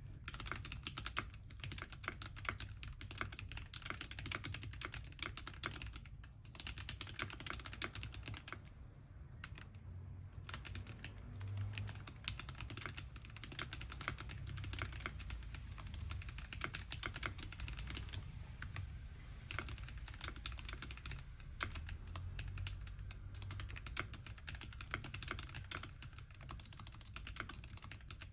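Steady typing on a Womier K61 60% mechanical keyboard with Gateron North Pole linear switches and transparent keycaps: fast, continuous key clacks with brief pauses.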